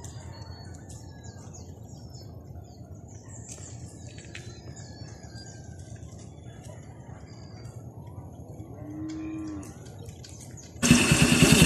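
Outdoor morning background of a low rumble with scattered bird chirps, and one short animal call rising and falling in pitch about nine seconds in. Near the end a loud motorcycle engine cuts in suddenly.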